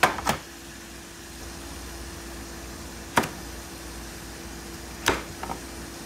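A few sharp knocks over a steady hum: two close together at the start, one about three seconds in, and another about five seconds in followed by a couple of lighter taps.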